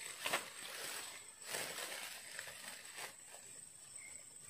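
Faint rustling of bankside grass and clothing as someone crouches at the water's edge, loudest near the start and again around a second and a half in. A steady high-pitched insect whine runs underneath.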